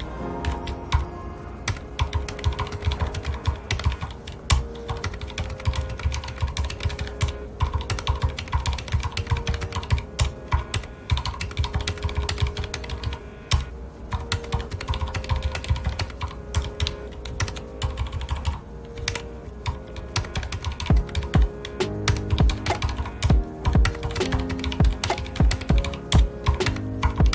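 Steady, fast typing on a mechanical keyboard with red (linear) switches: a dense, irregular patter of keystrokes, over soft background music.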